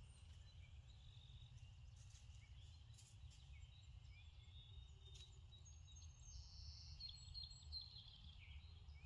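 Near silence: a low steady rumble with a few faint bird calls, most of them in the second half.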